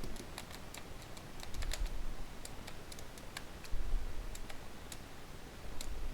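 Qiyi speed pyraminx being turned by hand: irregular sharp plastic clicks as its layers snap round, some coming in quick runs of several.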